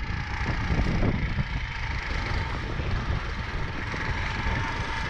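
Engine of a homemade snow vehicle with a 20 hp motor and CVT running as it drives across the snow, heard under heavy wind buffeting on the microphone.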